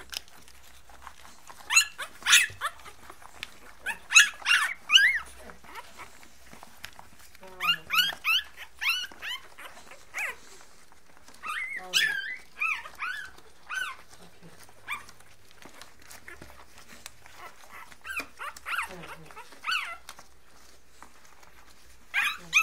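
Young English bulldog puppies whimpering and squealing in short, high, wavering cries that come in bunches with brief lulls between.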